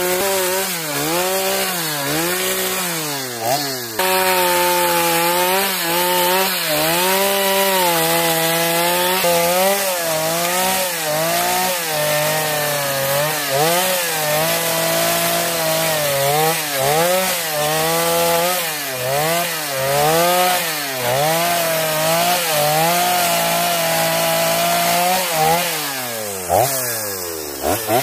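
Two-stroke chainsaw cutting into a log, its engine pitch dipping and rising again and again as the chain bites and frees in the wood. Near the end it slows almost to idle, then revs up again.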